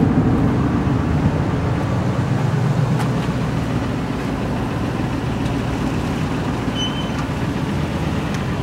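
2005 Ford F-250 pickup's gasoline engine idling, a steady low rumble.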